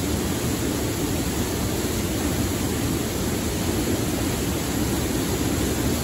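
Mountain stream water rushing at a waterfall, a steady, even noise with no breaks.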